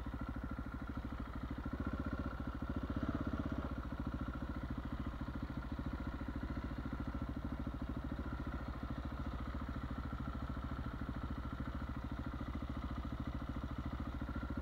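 Husqvarna 701 supermoto's single-cylinder engine idling through a Wings aftermarket exhaust, a steady pulsing beat.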